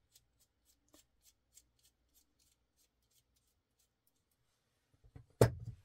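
Small screws being backed out of a folding knife's carbon fiber scale with a small bit driver: a run of faint, quick ticks, about three or four a second. Near the end comes a single loud knock.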